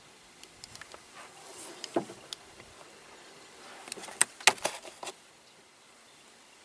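Scattered clicks and knocks of metal tools and engine parts being handled, with one sharp knock about two seconds in and a quick cluster of clinks between about four and five seconds.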